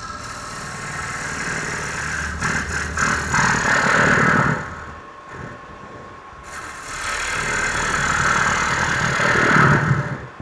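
A 75-degree bowl gouge rough-cutting the bottom of a spinning Bradford pear bowl on a wood lathe, peeling off long ribbons of shavings. There are two long cutting passes, each growing louder, with a short pause between them, over the steady hum of the lathe's motor.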